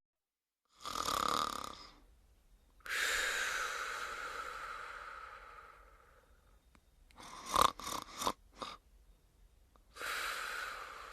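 A woman snoring in her sleep: a short snore about a second in, then a long drawn-out snore that fades away over several seconds. Several short sharp sounds follow, and another snore starts near the end.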